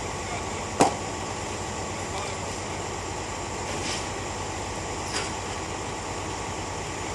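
Timber boards being laid on the road: a sharp wooden knock about a second in and a softer one about five seconds in. Underneath, a steady engine hum from idling heavy machinery.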